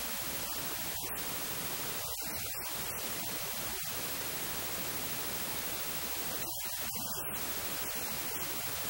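Steady hiss of static, even and unchanging, loudest in the treble, with no traffic or other sounds audible through it.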